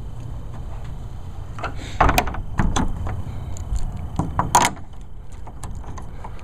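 Storage shed's double doors being pushed shut by hand: a run of knocks, clatters and rattles starting a little under two seconds in, the loudest about four and a half seconds in.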